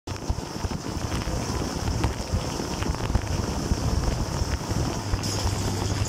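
Dishwasher running its wash cycle, heard from inside the tub: water jets from the spray arms splashing over the racks and dishes, over a steady low hum from the wash pump motor. The spray hiss grows brighter about five seconds in.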